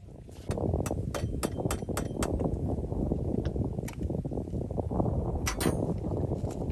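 Kubota DC-70 combine harvester working, a dense low rumble that starts about half a second in. Sharp metallic clicks and clanks are scattered over it, most of them close together in the first couple of seconds.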